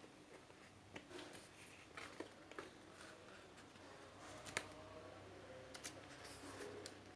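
Faint handling sounds of a CD album's packaging being opened: scattered light clicks and short rustles of plastic and paper.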